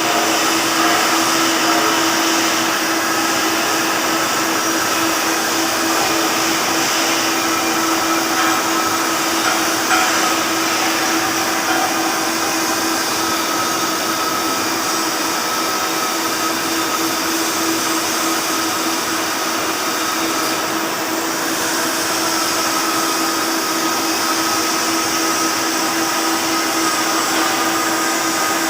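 Flux-cored arc welding with 1.2 mm wire on carbon steel: the arc gives a loud, even hiss, with a constant hum underneath.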